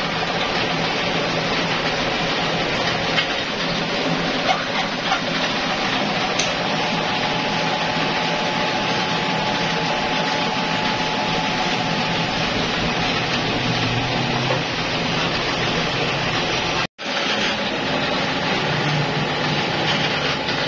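Steady running noise of a rubber injection-molding machine and an electric pedestal fan, with a faint steady whine for a few seconds in the middle. The sound cuts out for an instant about 17 seconds in.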